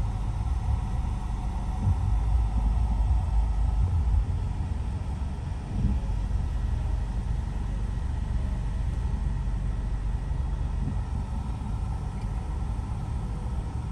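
A vehicle driving along city streets, giving a low, steady road rumble that rises and falls slightly.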